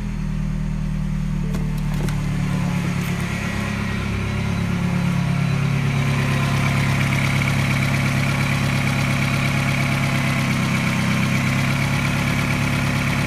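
Mini's N12 1.6-litre four-cylinder petrol engine at a fast idle just after starting, part-warm, running fairly smoothly. Its tone settles a few seconds in and then holds steady.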